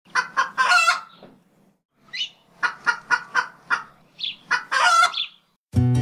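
A chicken clucking: two runs of short clucks, each ending in a longer drawn-out call. Acoustic guitar music starts just before the end.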